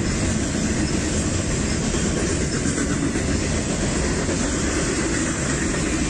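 Freight train of boxcars passing close by: a loud, steady noise of the cars rolling along the track.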